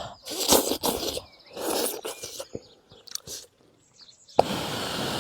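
A person eating spicy stir-fried tofu skin and pork: bites and chewing with crunching, in several bursts with short pauses between.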